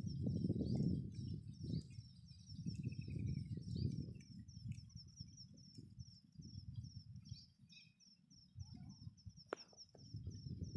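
Wind buffeting the microphone in low gusts, with small birds chirping in rapid high notes behind it. A single sharp click comes near the end.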